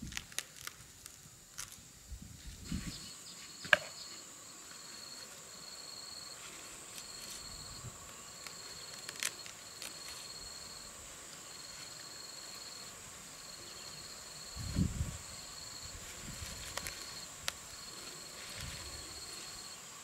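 Insects trilling outdoors: one steady high buzz, with a second insect trilling in repeated bursts of about a second. Scattered clicks and a few low thumps, the biggest a little after the middle.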